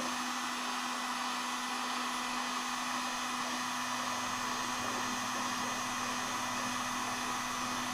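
Electric heat gun running steadily, blowing hot air onto a cable wound around PVC tubing to heat-set it into a coil.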